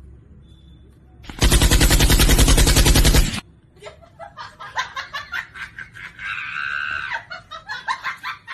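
A loud burst of rapid automatic machine-gun fire lasting about two seconds, starting just over a second in and cutting off suddenly, followed by laughter.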